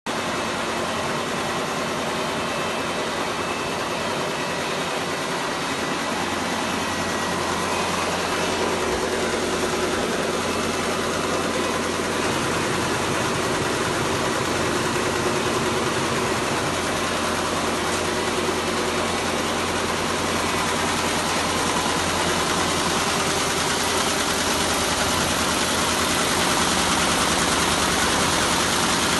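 Richpeace multi-head quilting and embroidery machine running, its needle heads stitching a diamond quilting pattern into a mattress topper: a steady mechanical sound with a fast, even rhythm.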